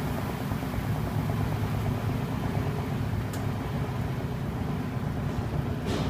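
Whirlpool WLA8444 belt-drive top-load washer spinning, its motor and belt-driven transmission running with a steady low drone. There is a faint tick about three seconds in.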